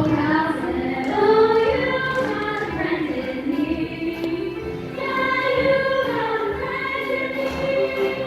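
Junior high school choir singing, with voices holding and moving between long notes.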